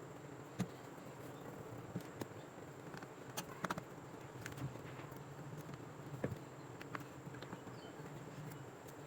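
Faint steady hum and hiss with a handful of sharp light clicks and taps scattered through it, the loudest about half a second in and just past six seconds.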